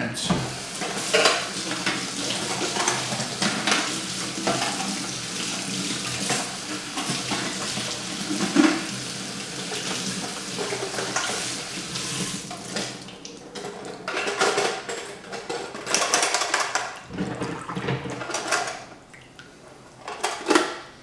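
Kitchen faucet running into a stainless steel sink as a metal toy train boxcar is rinsed under it, with clinks and knocks of the car against the sink and faucet. About two thirds of the way through the water stops and only scattered clattering of the car being handled is left.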